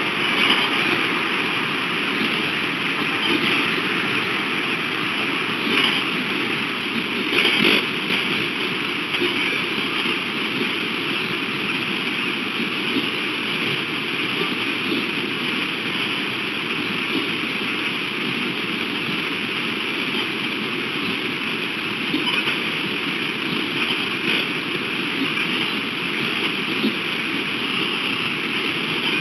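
Steady rush of running water from a stream, with a couple of brief louder knocks about six and seven and a half seconds in.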